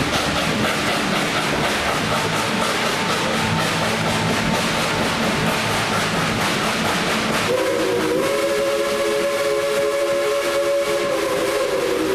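Steam train running with steady rolling and rail clatter; about seven and a half seconds in, the locomotive's steam whistle blows one long chord of several tones, still sounding at the end.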